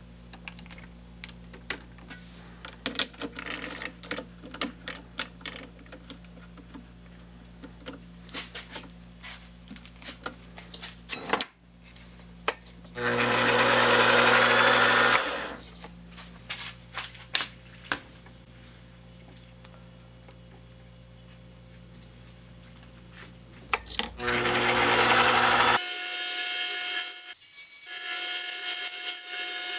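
Mini lathe spinning an end mill bit in its chuck, milling brass hex stock clamped in the tool post. The first part holds scattered small clicks and taps from setting up the tool holder. The motor then runs twice in short spells, and near the end the end mill cuts the brass with a steady high-pitched sound.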